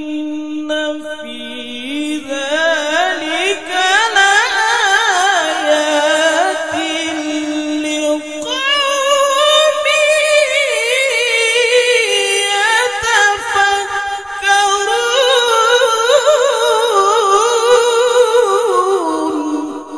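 A male qari reciting the Qur'an in melodic tilawah style. He sings long, ornamented phrases full of fast wavering trills, climbing from a mid pitch into a high register, with short breaths about eight and fourteen seconds in.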